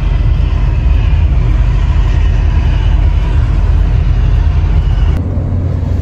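Motorhome engine running with a steady low rumble, heard from inside the cab. About five seconds in it cuts abruptly to a quieter low hum.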